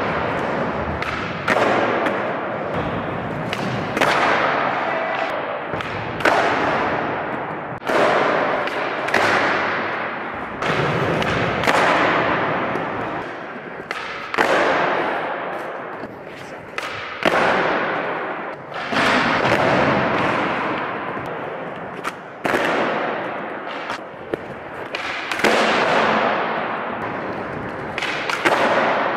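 Skateboard on a smooth indoor floor: tail pops and landings clacking every one to two seconds, each followed by wheels rolling and a fading echo.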